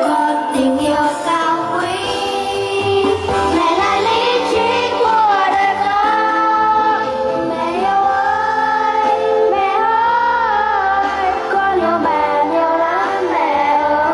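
A song sung by children together with a woman's voice over a backing music track, amplified through microphones and a loudspeaker.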